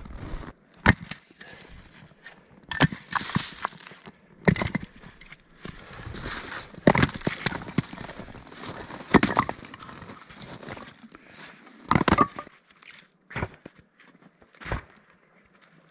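Cut firewood rounds being picked up and dropped onto a pile, wood knocking on wood in a series of sharp, irregular knocks every second or two, with footsteps crunching in snow between them.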